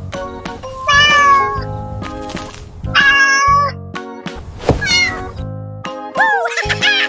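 Background music with a steady beat, over which a cartoon animal gives four high, meow-like cries that bend in pitch.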